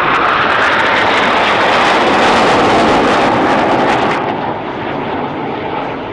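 Formation of four Northrop NF-5 fighter jets passing, their twin J85 turbojets making a loud jet roar. The high hiss drops away abruptly about four seconds in and the roar fades as the jets climb away.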